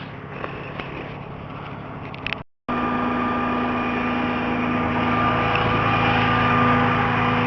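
Motor vehicle engine idling steadily, with a few faint clicks. The sound cuts out briefly about two and a half seconds in and returns louder.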